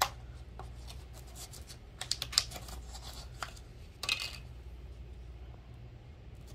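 Small plastic cup of red glass powder being handled and its snap-on lid pried off: a few light plastic clicks and crinkles, the sharpest about two seconds in and again around four seconds, over a steady low hum.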